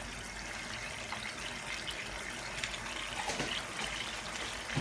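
Tomato-based sauce simmering in a wok over a gas burner: a steady hiss with a few faint ticks and pops.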